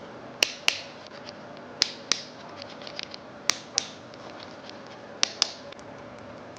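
Sharp clicks in pairs from small tools at a phone repair bench: four pairs, the two clicks in each about a third of a second apart and the pairs about a second and a half apart, over a faint steady hum.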